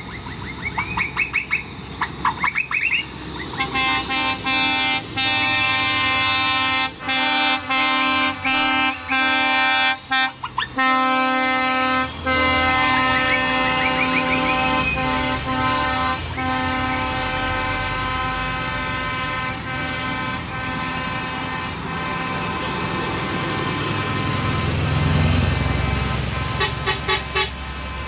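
Truck air horns of a passing lorry convoy sounding in long held blasts, several horns at once, broken by short gaps and quick blasts. About halfway through the horns stop, leaving the heavy diesel engines of the passing trucks running. One engine swells as it goes by, followed by a few quick toots near the end.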